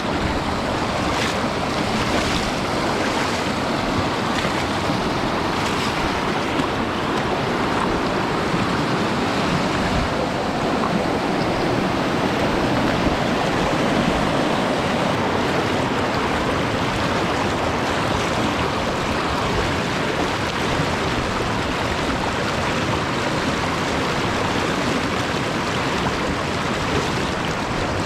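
Steady rushing of a fast-flowing mountain stream.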